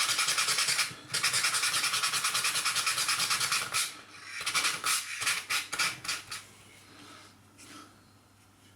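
Fast, even back-and-forth abrasive strokes against the steel tip of a small screwdriver, cleaning the driver head. After about four seconds the strokes slow and turn uneven, then stop about two-thirds of the way through.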